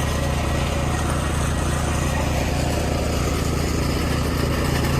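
Concrete mixer truck's diesel engine running steadily, an even low hum with constant tones.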